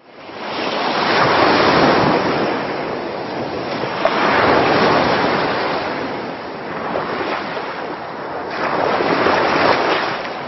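Ocean waves washing ashore, a sound effect that fades in and then swells and ebbs in slow surges every few seconds.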